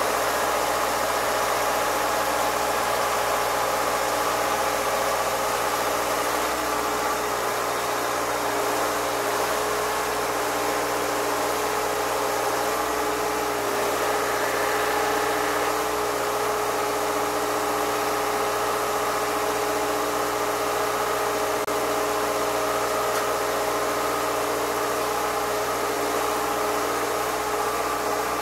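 An engine running at idle with a steady drone of several unchanging hum tones and no change in level.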